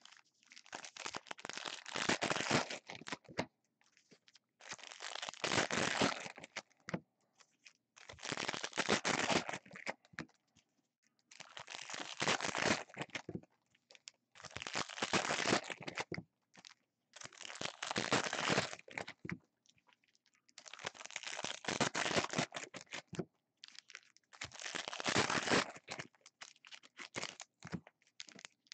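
Foil wrappers of 2016 Contenders football card packs being torn open and crinkled, one pack after another: about nine bursts of tearing and crinkling, roughly every three seconds.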